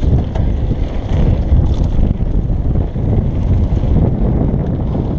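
Wind buffeting the microphone of a bike-mounted action camera as a mountain bike rides fast down a gravel trail, over a steady rumble of tyres on gravel and a few short knocks from the bike over bumps.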